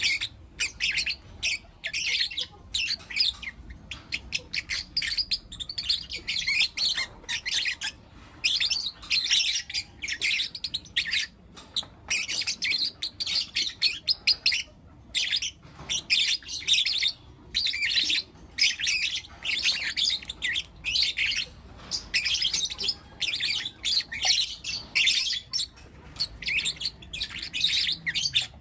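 Lutino lovebird chicks chirping continuously, rapid high-pitched chirps in quick clusters with brief pauses.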